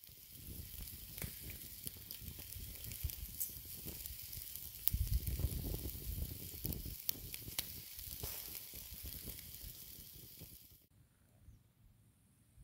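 Birch-log bonfire crackling and hissing over glowing embers, with frequent sharp pops and a louder, rumbling stretch about five seconds in. The fire sound cuts off suddenly near the end, leaving faint outdoor quiet.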